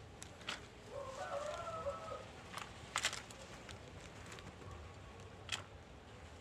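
Free-range hen pecking at a cabbage-like leaf on concrete: a few sharp pecking taps, two close together about three seconds in. A short chicken call is heard about a second in.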